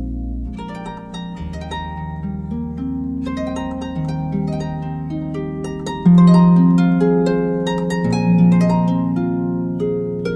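Background music: a plucked-string melody of short, ringing notes over held low notes, getting louder about six seconds in.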